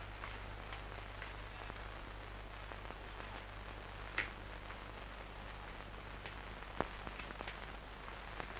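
Steady hiss and low hum of a 1970s film soundtrack, with faint crackle and a few soft clicks, the most distinct about four seconds in and again near seven seconds.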